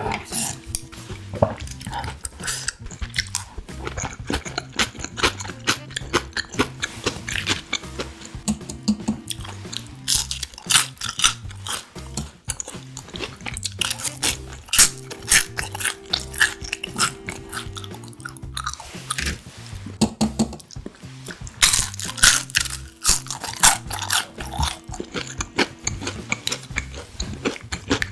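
Close-up crunchy chewing and biting of fried tiny shrimp, with many quick crackling crunches, over steady background music.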